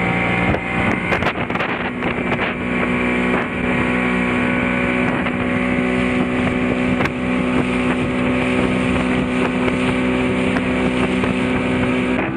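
Outboard motor of a small boat running steadily at cruising speed, with water rushing past the hull and a few clicks about one to two seconds in.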